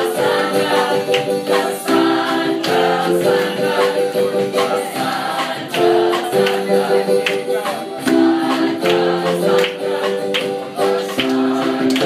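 A group of people singing a song together in Spanish, in chorus with long held notes, to a strummed acoustic guitar.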